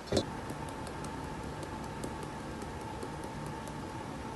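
Soft rustling and faint light ticks of hands kneading crumbly oat-flour dough in a stainless steel bowl, over a steady low hum.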